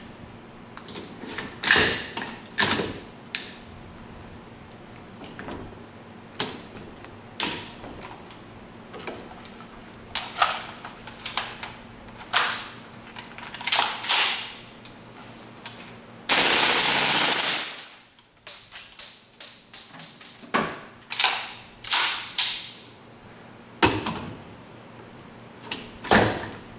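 WE M4 open-bolt gas blowback airsoft rifle: scattered metal clicks and clacks as it is handled, then one short full-auto burst of about a second and a half just after the middle, followed by more quick clicks.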